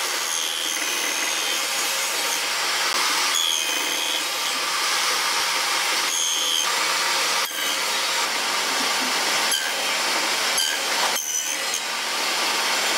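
Table saw running steadily while the end of a board is fed across the blade in repeated passes, cutting the slots of a finger joint; a higher whine comes and goes several times as the blade bites into the wood.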